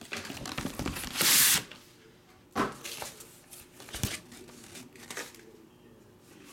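Perforated tear strip of a cardboard box being ripped open, with one loud tearing rip a little over a second in. Then come a few knocks and scrapes of cardboard and a large card photograph being slid out and handled.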